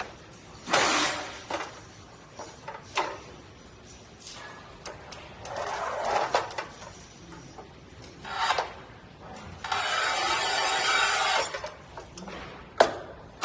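A manual tile cutter being worked on a ceramic tile: clinks and scrapes as the tile is set on the rails, then the carbide scoring wheel scratching along the glazed surface in one even pass of about two seconds, followed by two sharp clicks near the end.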